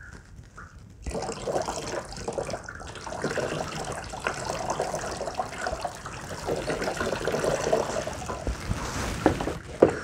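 Water poured from a plastic cup over an orchid mounted on a stick, running through its roots and moss and splashing into a plastic tub below, starting about a second in. The plant is being soaked thoroughly, all over.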